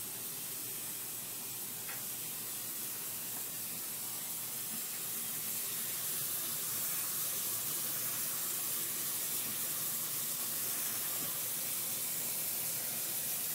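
Kitchen tap running steadily into a plastic bowl of dried eru leaves, water splashing onto the leaves as the bowl fills; it gets a little louder about five seconds in.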